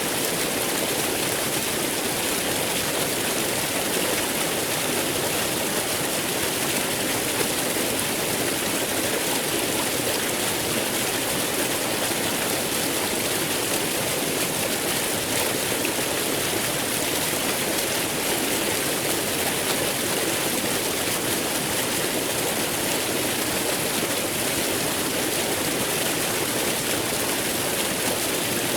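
Waterfall flowing: a steady, unbroken rush of falling water.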